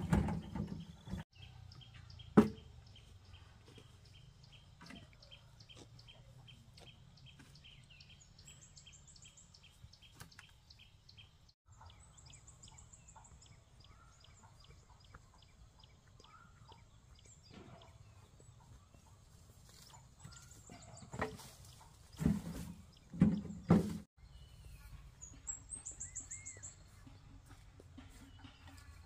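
Quiet rural background with birds chirping: a quick, evenly spaced run of chirps in the first half and high trills later. A few loud knocks stand out, one near the start and a cluster about two-thirds through.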